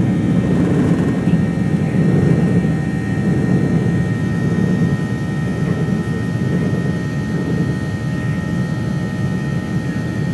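Jet airliner, a Boeing 737, climbing after takeoff: its engines and airflow make a steady low drone with a thin steady whine above it, easing off slightly near the end.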